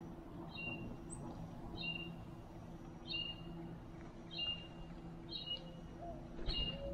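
A bird's short, high call repeated six times, about once every second and a quarter.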